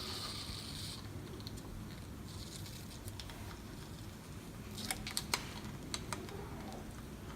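Faint handling noises: a soft rustle in the first second, then a handful of light clicks and taps about five to six seconds in.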